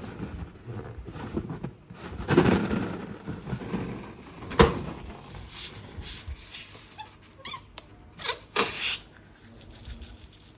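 Rubber balloons squeaking as they are handled and squeezed, in irregular bursts, with a sharp click about four and a half seconds in.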